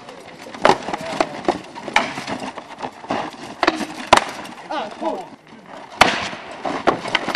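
Rattan swords and axes striking wooden shields and armour in SCA heavy combat: irregular sharp cracks and knocks, with voices in the background.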